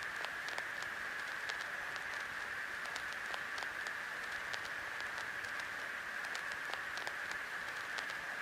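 Steady static hiss with scattered faint clicks.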